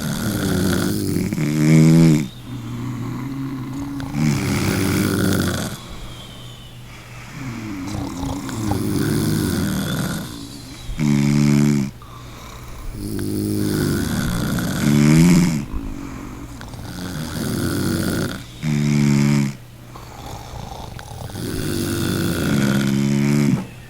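A person snoring in a regular rhythm, roughly every three to four seconds, about six snores in all. Each breath builds from a rasping hiss into a short, louder, buzzing snort.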